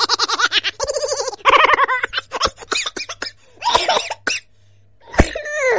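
A person laughing in quick, high bursts, with a voice sliding down in pitch near the end.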